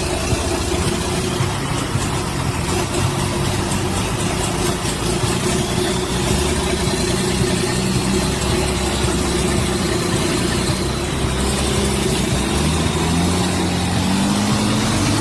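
A heavy vehicle's engine running steadily under load, rising in pitch over the last few seconds as it revs up.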